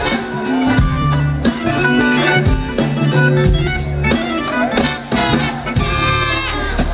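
Live blues-rock band playing: electric guitar lines over bass and drums.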